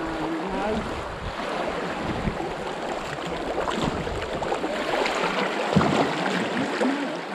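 River current rushing and splashing around an open canoe as it is paddled through choppy water, with short splashes of paddle strokes, the loudest of them a little before the end.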